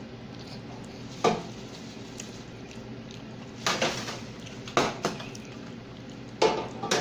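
Wire mesh basket of a T-fal electric deep fryer knocking and clanking against the fryer as it is lifted out of the oil, hooked and moved around: about five sharp metal knocks, the first about a second in and the rest in the second half, over a steady low background.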